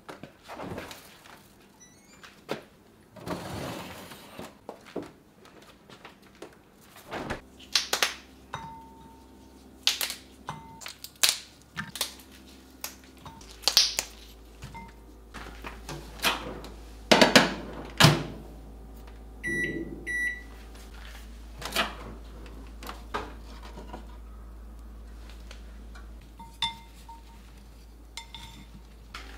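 Kitchen handling sounds: a refrigerator door opening, then a string of knocks and clunks of dishes and containers being moved. About two-thirds of the way through, a microwave oven's keypad beeps twice as its buttons are pressed, over a steady low hum.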